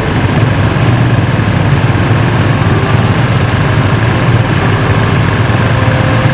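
Several police patrol motorcycles riding along at low speed, their engines running as a steady, loud low drone.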